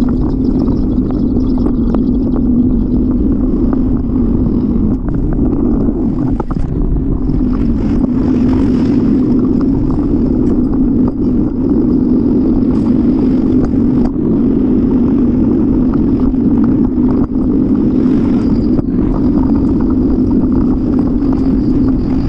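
Steady rumble of wind buffeting and road noise on a camera mounted on a moving bicycle, with a faint high whine over it.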